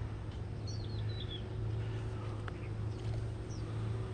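Steady low background hum with faint bird chirps: a short run of high, falling chirps about a second in and one more near the end. A single faint click comes midway.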